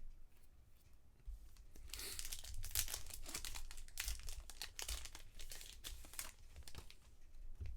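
A trading-card pack wrapper crinkling and being torn open by hand, starting about a second in: a dense, crackly run of small crackles.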